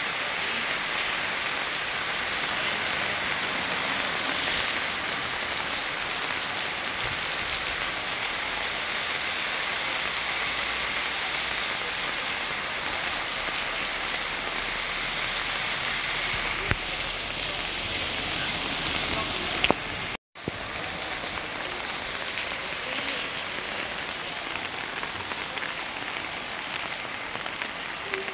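Heavy rain falling steadily on paving and on an umbrella held overhead, an even hiss of drops. The sound cuts out for an instant about two-thirds of the way through.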